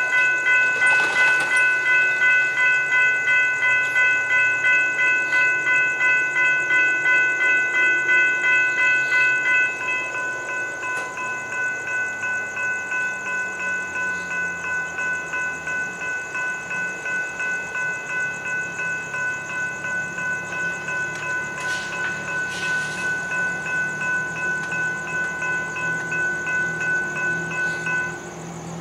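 Railroad grade-crossing warning bells ringing, about two strokes a second. One bell drops out about ten seconds in, leaving a quieter ring that stops just before the end.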